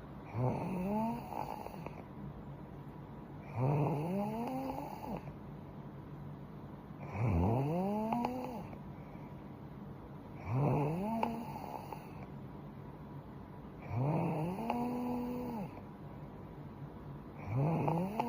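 A young woman snoring in her sleep: six regular snores about three and a half seconds apart, each lasting a second or so with a pitch that rises as it goes.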